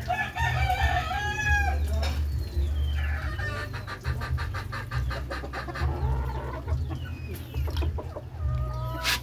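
Chickens calling: a long pitched call in the first two seconds, then a fast run of clucks, with more short calls later on.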